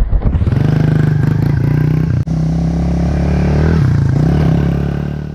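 Pit bike engine revving up and holding at steady revs as the bike takes a dirt jump, with a very brief dropout a little over two seconds in. The sound fades out near the end.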